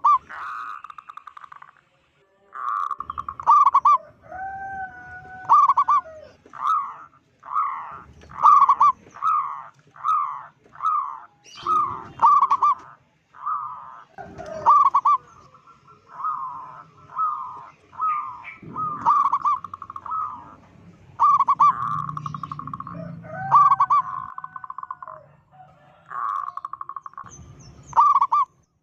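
Zebra dove (perkutut) cooing: a long run of short rolling coo phrases repeated one after another, with brief pauses between phrases.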